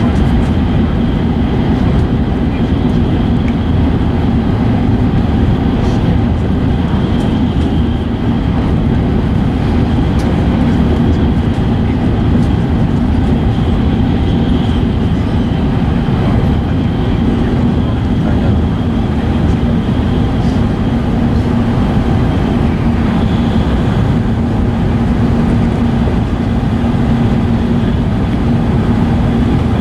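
Inside the car of an E5 series Shinkansen running at speed: steady running noise, heavy in the low range, with a constant low hum and a faint high tone.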